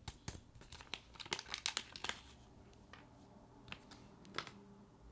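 Faint crinkling of a small plastic parts bag and light clicks of small screws being handled, mostly a quick cluster in the first two seconds, with a couple of single clicks later.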